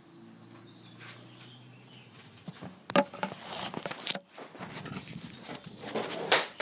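Handling noise of a handheld camera being picked up and moved: irregular knocks, clicks and rustling that start about two seconds in, the loudest knocks near the middle and the end.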